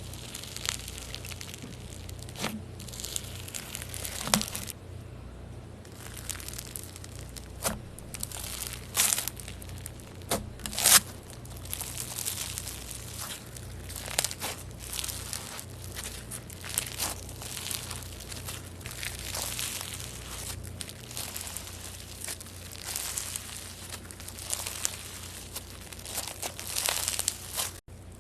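Slime being squeezed, stretched and pressed by hand, giving a run of irregular crackling and popping with a few sharper pops.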